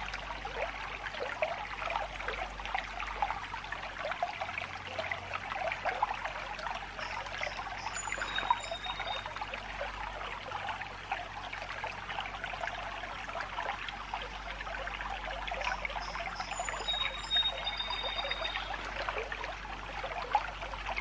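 A shallow creek running and trickling steadily.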